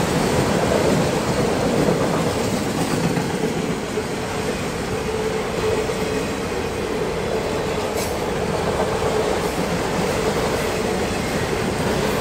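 Freight train of autorack cars passing at speed: the steady rolling noise of steel wheels on rail, with a steady whine running through it. One sharp click comes about eight seconds in.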